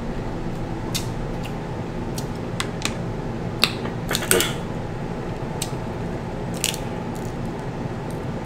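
Close-up eating sounds from a crab-leg seafood boil: chewing and mouth smacks with scattered sharp clicks and cracks of shell being broken and peeled by hand, over a steady hum.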